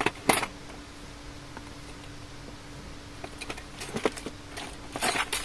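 Hands rummaging through an open plastic Kenmaster B380 toolbox: metal tools clicking and clattering against each other and the plastic, and plastic bags rustling. The handling comes in short, irregular bursts, with the loudest clatter near the end.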